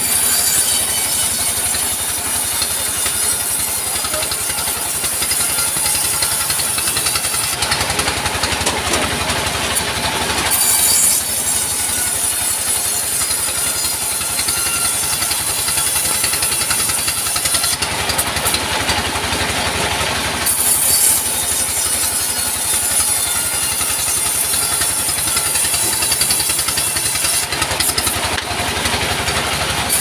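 Diesel engine running steadily to drive a sawmill bandsaw. Three times, about 8, 18 and 28 seconds in, the sound changes for two or three seconds as timber is fed through the blade.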